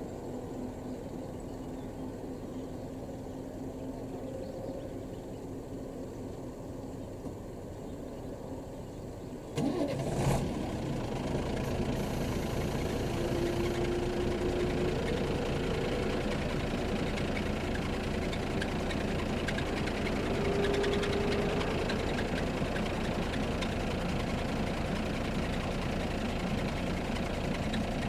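Mercedes-Benz truck's diesel engine started about ten seconds in, then idling steadily to a low rumble.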